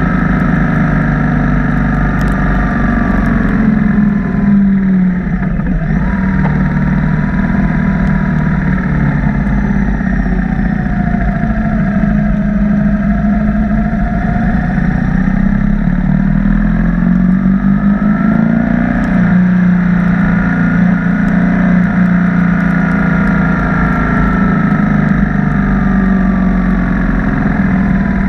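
BMW R1200 motorcycle's boxer-twin engine running under way. Its pitch climbs as it pulls and drops sharply at gear changes about five seconds in and again about two-thirds of the way through, over a steady low rumble.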